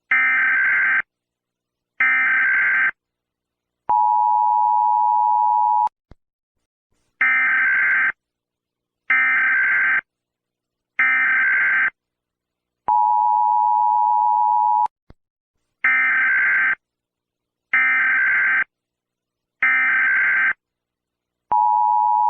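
Emergency Alert System SAME data bursts: harsh one-second digital screeches in sets of three, each set followed by a two-second steady two-tone attention signal. The cycle repeats three times.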